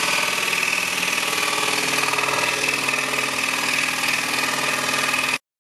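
Scroll saw running steadily, its blade cutting through a taped-together stack of wooden slices. It cuts off suddenly near the end.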